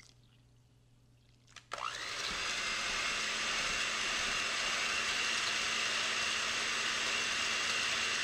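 Hamilton Beach electric hand mixer with a whisk attachment switched on about a second and a half in, beating instant pudding mix and cold milk with a steady whirring hum and a thin high whine.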